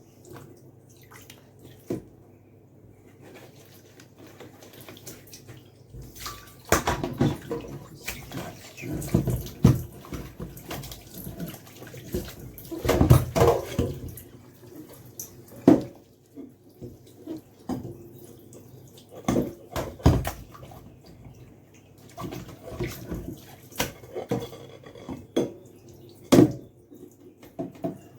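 Washing up dishes at a kitchen sink: water running and splashing in irregular spells, with scattered clinks and knocks of dishes being handled.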